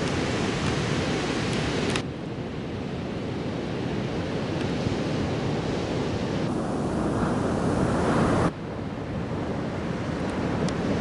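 Ocean surf breaking on a beach: a steady rushing wash of waves, with wind buffeting the microphone. The sound drops suddenly about two seconds in, builds again, and drops sharply once more near the end.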